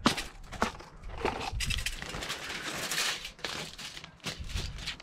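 Aluminium foil and a plastic zip-top bag being handled and crinkled, giving irregular crackling rustles with a few sharp clicks. The rustling is densest in the middle of the stretch.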